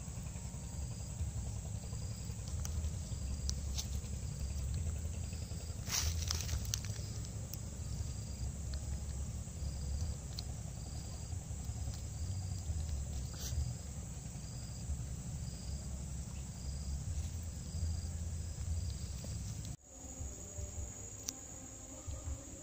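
Insects chirping in the grass: a short high chirp repeating about once a second over a low steady rumble, with a brief rustle about six seconds in. Near the end the sound changes to a steady high insect drone.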